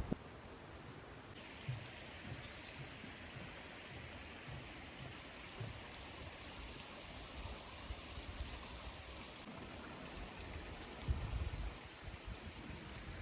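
Running water of a stream, a steady rushing hiss, with scattered low thumps.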